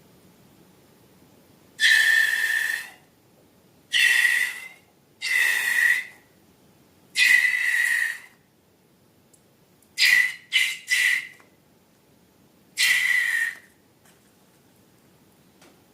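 Rubber balloon squealing as air is let out through its stretched neck, in a series of high, steady-pitched squeals about a second each, with three quick ones in a row about ten seconds in.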